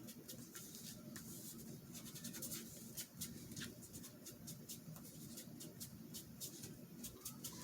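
Faint, irregular scratching and ticking of paper being worked by hand, many small clicks in quick, uneven succession.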